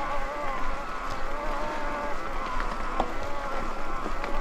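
Electric mountain bike's drive motor whining steadily under heavy load on a steep climb, a sign that the motor is straining. There is a single click about three seconds in.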